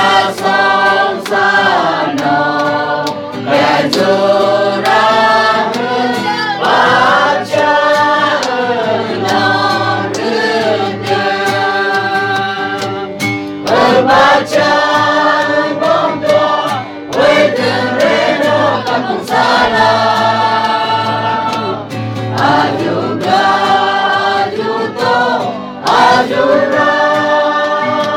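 A small mixed group of men and women singing a hymn together in phrases, with short breaths between lines.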